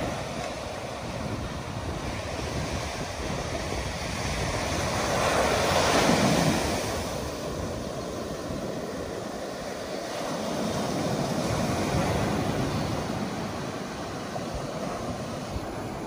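Ocean surf breaking and washing up a sandy beach, swelling and easing as waves come in, loudest about six seconds in and again around twelve.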